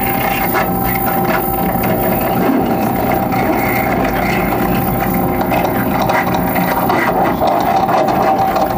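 Live harsh noise music: a loud, continuous wall of grinding, rattling noise with a steady held tone running through it and scattered sharp clicks.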